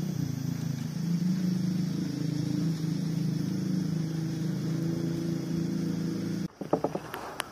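An engine running steadily at an even, low pitch, cutting off suddenly near the end, followed by a few quick clicks.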